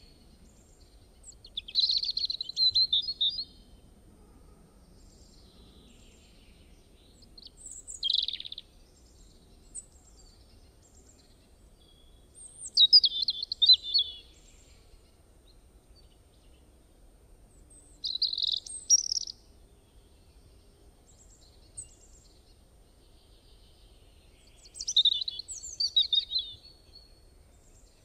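A bird singing short phrases of rapid, high chirps, five bursts about every five seconds, the loudest near the middle.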